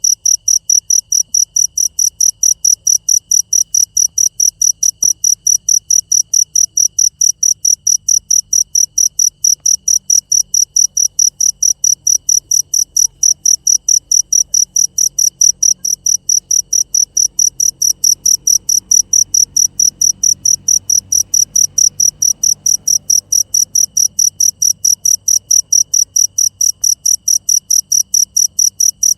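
Cricket chirping in a fast, very even rhythm, about four short high-pitched chirps a second.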